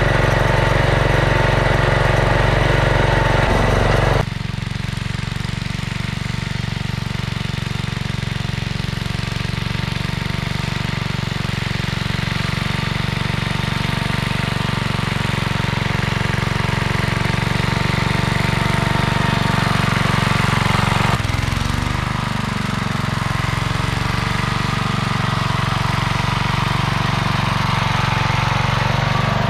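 Simplicity 2010 garden tractor's engine running steadily while it pulls a cultivator through dry soil. Loud and close at first, then abruptly quieter and farther off about four seconds in, with a brief wavering in pitch about two-thirds of the way through.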